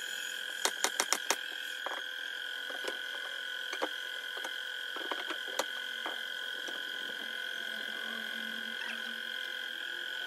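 A steady high-pitched hum, with light clicks and taps over it: a quick run of several about a second in, then a few single ones spread out.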